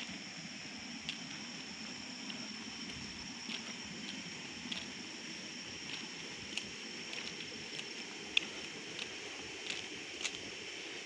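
Night insects trilling steadily at a high pitch, with soft footsteps on a paved road about once a second.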